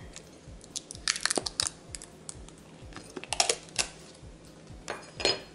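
Thin clear plastic wrapping crinkling and crackling as it is handled and pulled off small red headphone shield plates, in short bursts about a second in, between three and four seconds, and near the end.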